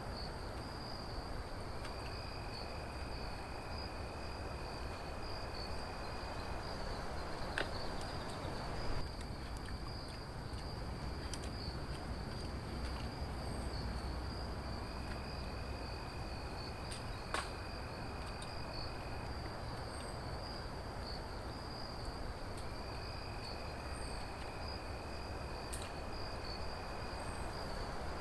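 Insects singing: one steady, unbroken high-pitched trill, and a second, lower call about four seconds long that comes three times, over a steady background hiss with a few sharp clicks.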